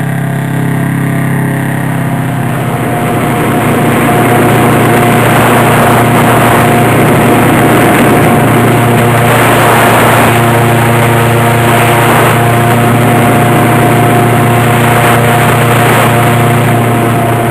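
Airboat engine and propeller running steadily at speed, getting louder about three seconds in.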